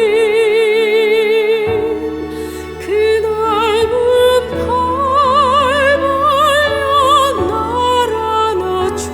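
Contemporary Christian ballad: a singer with a wide vibrato holds a long note, then sings on in phrases over an accompaniment whose bass comes in about two seconds in.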